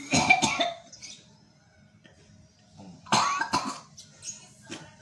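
A person coughing and hacking to bring up phlegm, in two harsh bouts: one at the start and another about three seconds in, with a short hack near the end. This is mucus being expelled during gurah therapy, where herbal drops are put in the nose to loosen it.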